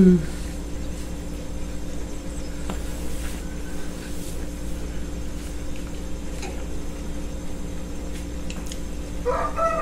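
Steady low hum with a few faint clicks and taps. Near the end a rooster begins to crow.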